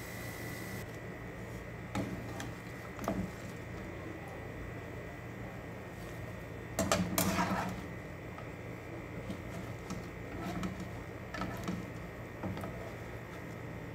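Metal slotted turner scraping and knocking against a nonstick frying pan as fried potato cubes are scooped out and dropped onto a paper-towel-lined plate, a few separate strokes with the loudest scrape about seven seconds in, over a steady low hum.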